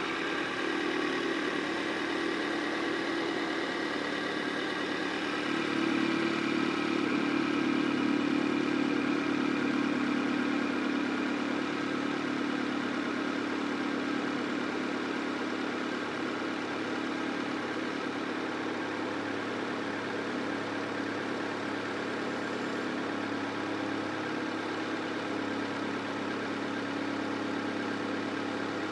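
Honda CR-V's 2.0-litre four-cylinder engine idling steadily, growing a little louder from about five seconds in before settling back.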